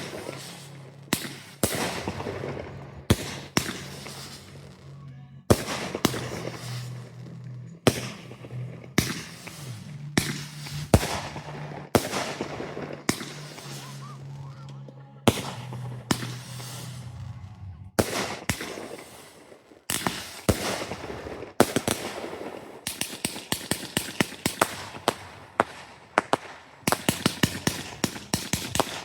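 Fireworks going off in a string of sharp bangs, each trailing off in a fading echo. From about two-thirds of the way in, the bangs come fast, several a second.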